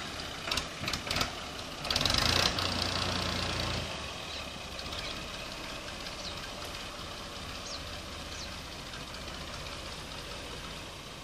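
New Holland Fiat 480 tractor's diesel engine revving up briefly about two seconds in as the tractor pulls away, then running steadily at low speed as it drives off.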